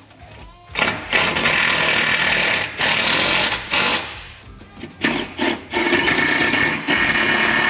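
Cordless impact driver running in a string of bursts, driving self-tapping screws into a UTV skid plate; the longest burst comes near the end.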